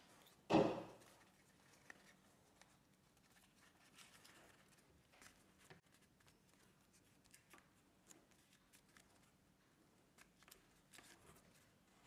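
A4 printer paper being handled and folded by hand: soft rustles and small crinkles, with one louder sudden paper sound about half a second in.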